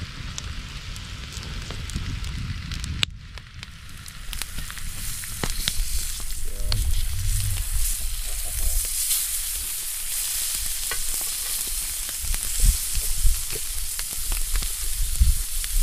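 Rainbow trout frying in oil in cast iron over a campfire: a steady sizzle that grows louder about four seconds in. Scattered sharp clicks and scrapes of a spatula on the pan.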